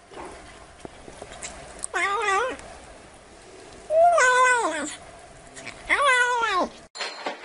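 Domestic cat meowing three times, about two seconds apart, each meow under a second long. The last meow falls in pitch at its end.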